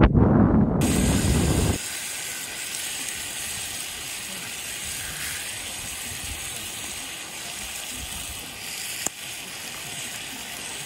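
Wind buffeting the microphone for the first two seconds, then a steady sizzling hiss of food frying on a small camp stove, with a single click near the end.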